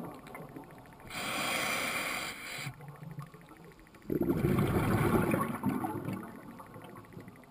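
Scuba diver breathing through a regulator: a hissing inhale about a second in, then a burst of bubbling exhaust about four seconds in.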